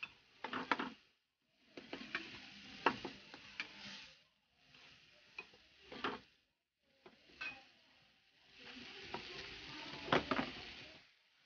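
Spatula stirring and scraping macaroni in a frying pan, with frying sizzle and sharp clinks of the spatula against the pan. It comes in several bursts with short pauses between.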